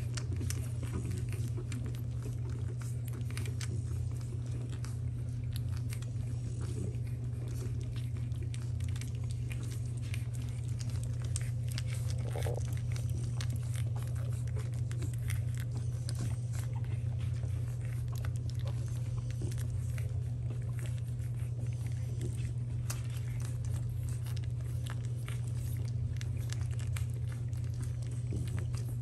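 Week-old French bulldog puppies suckling milk, a steady run of small wet clicks and smacks, over a steady low hum.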